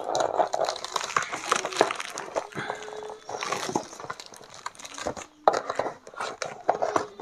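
Rustling and crinkling of packaging being handled while a keyboard is unboxed, with many scattered small clicks and knocks.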